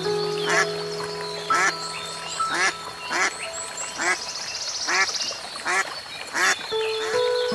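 Short animal calls repeated about once a second, each a brief call that bends in pitch, over background music with long held notes.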